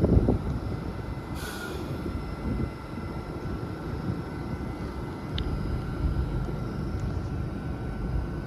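Trains standing at a station platform with engines idling: a steady low rumble under a constant thin whine, with a short hiss of released air about a second and a half in.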